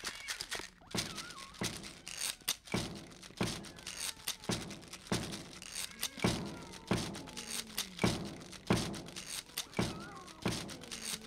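Film soundtrack: a steady rhythmic percussion beat, a sharp hit about every two-thirds of a second, with faint sliding tones between the hits.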